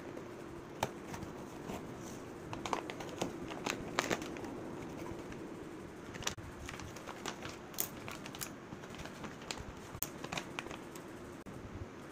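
Plastic bag and paper wrapping crinkling and crackling in irregular bursts as hands open a package of raw crabs, over a faint steady hum.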